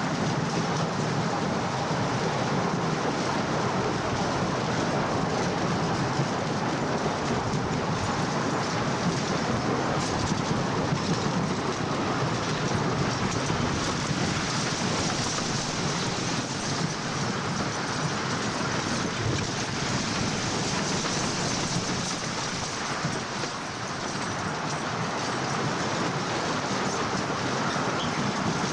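Wooden side-friction roller coaster train running along its track, a steady noise of wheels on the wooden track with no let-up, dipping slightly about three-quarters of the way through.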